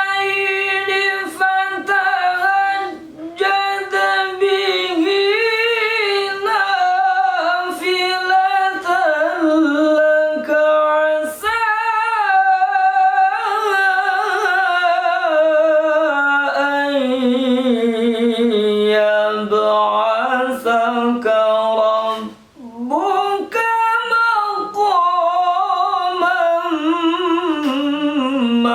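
A male qari chanting the Quran (tilawah) in the melodic Bayyati mode: long held notes with rapid ornaments, starting high, descending slowly to a low sustained passage, pausing briefly about three-quarters of the way through, then climbing again. The recording comes from the camera's built-in microphone in a small room.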